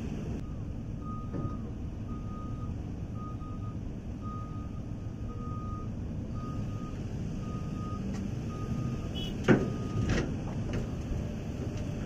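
Reversing alarm of an articulated dump truck beeping about once a second as it backs up, over the steady diesel rumble of the truck and a Hitachi ZX350 hydraulic excavator. The beeping stops about three-quarters of the way through, with a sudden loud burst and a smaller one just after.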